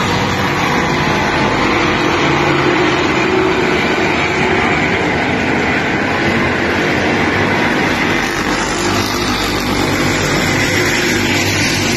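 Stock-car race engines running hard around a short oval track, a steady loud drone without letup.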